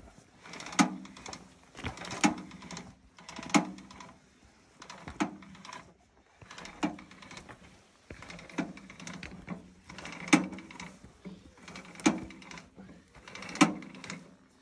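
Game cart's hand winch being cranked, its ratchet rattling, with a sharp clack about every one and a half seconds, while it draws a bull elk carcass up onto the cart.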